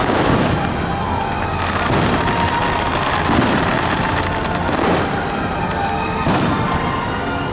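Aerial fireworks shells bursting, a string of sharp bangs about every second and a half, with music playing underneath.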